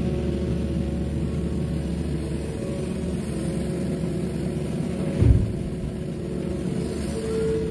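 Mini excavator's diesel engine running under load as it swings a bucket of dirt over the dump truck. About five seconds in there is a single heavy thud as the load lands in the truck's steel bed.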